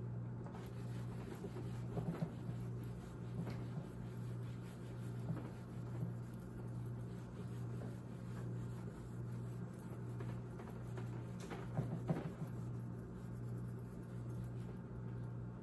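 Quiet room tone: a steady low hum with a few faint taps and clicks, about two seconds in, a few more over the next few seconds, and a small cluster around twelve seconds in.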